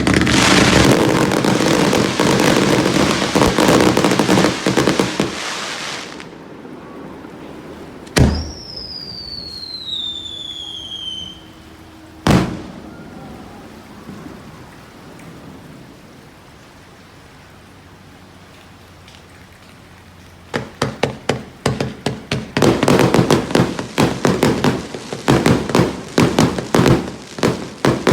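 Aerial fireworks going off: about six seconds of dense crackling, then a sharp bang followed by a falling whistle, another bang, a lull, and from about two-thirds of the way in a rapid string of crackling bursts.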